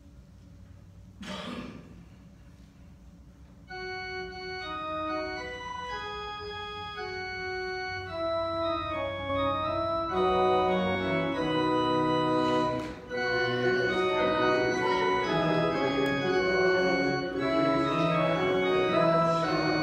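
Organ playing a hymn-like piece: it starts softly about four seconds in with a single line of sustained notes and builds to full chords. A short noise comes about a second in, before the music.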